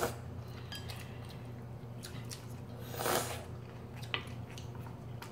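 Chopsticks and a spoon clicking lightly against ceramic bowls and plates as people eat, over a faint steady low hum. A short breathy noise comes about three seconds in.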